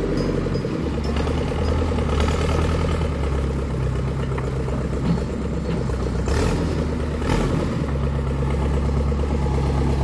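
Backhoe loader tractor's engine running steadily, its note shifting a little as it works, with a couple of brief knocks about six and seven seconds in.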